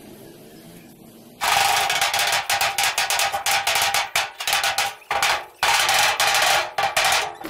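A loud power tool running in several bursts with short breaks, starting about one and a half seconds in, with a harsh rapid rattle.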